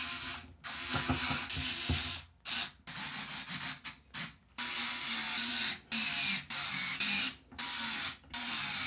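Small electric screwdriver driving screws into case fans in a series of short start-stop bursts with brief pauses between them.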